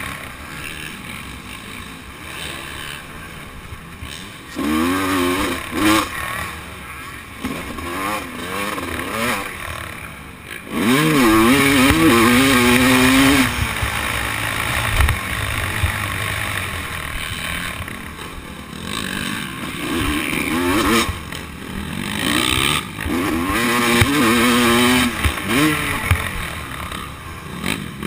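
Motocross dirt bike engine revving up and easing off again and again as the rider works the throttle around the track, heard from the rider's helmet, with the longest, loudest pull about eleven seconds in.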